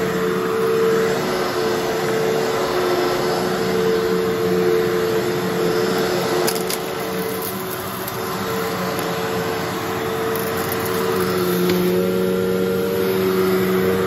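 Fantom Fury upright vacuum cleaner running while pushed over carpet: a steady motor hum and rushing airflow. Its pitch wavers a little and the level dips briefly about seven seconds in.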